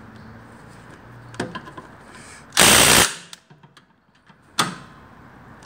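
Impact wrench hammering a brake caliper bolt tight through an impact socket in one short burst about halfway through, followed by a single sharp click about a second and a half later.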